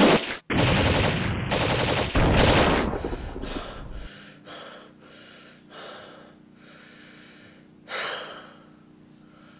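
A loud rushing blast of noise, broken briefly twice, falls away about three seconds in. It is followed by a person in a space helmet gasping for breath, short breaths every half second to a second with one sharper gasp near the end, over a faint steady hum.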